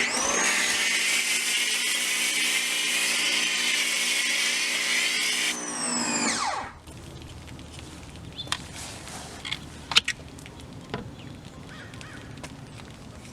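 Ryobi 1600 PSI electric pressure washer starting up and running steadily with a hissing spray through a foam cannon for about six seconds. Then the trigger is let go and the motor winds down with a falling pitch and stops. A few faint ticks follow.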